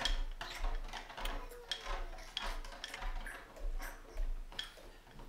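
A run of irregular clicks and light knocks, about two or three a second, with soft low thuds under some of them.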